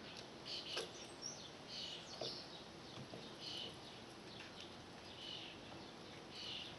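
Small birds chirping faintly, short high chirps repeating every second or so, with a couple of faint clicks.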